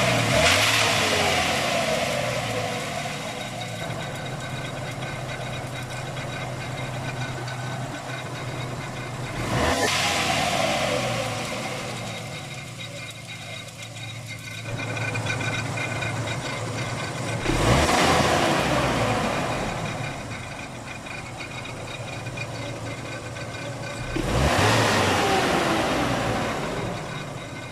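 1995 Ford Ranger's 2.3-litre four-cylinder engine idling and revved briefly three times, about every seven seconds, each rev falling back to idle. The engine is run this way to bring out a grinding noise.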